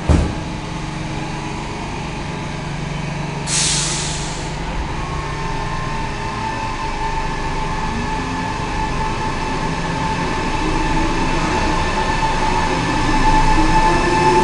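Metro train at the platform: a sharp thump, then a short burst of air hiss about three and a half seconds in, then the train's motor whine setting in and climbing in pitch as it gets louder, the train pulling away.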